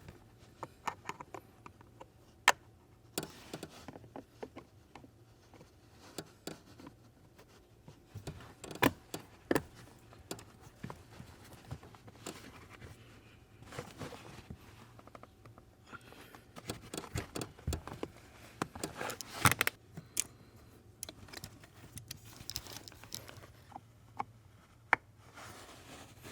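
Irregular clicks, taps and knocks of a Toyota manual dead pedal (footrest) being handled, its locking tabs turned and the pedal pressed into place in the footwell. A few louder knocks stand out, about 2.5, 9, 19.5 and 25 seconds in.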